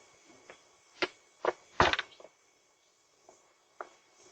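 A few short, sharp knocks, about one, one and a half and two seconds in, the last the loudest, with two faint ones near the end, over a faint steady hiss.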